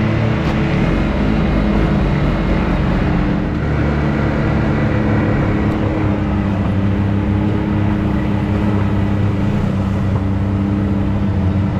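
Side-by-side UTV engine running steadily while the machine drives along a trail, a continuous drone with no let-up.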